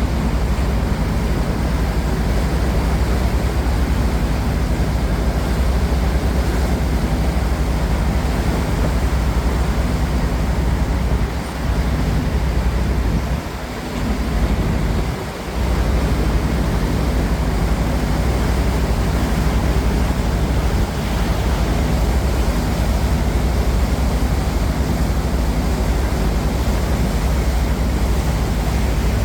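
Cruise boat's engine running steadily as a low hum, under an even hiss of wind and water. The hum dips briefly three times near the middle.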